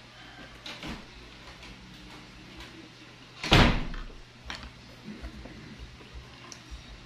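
One sharp knock of tableware about three and a half seconds in, as wooden utensils and dishes are handled at a wooden dining table, with a few fainter clicks around it.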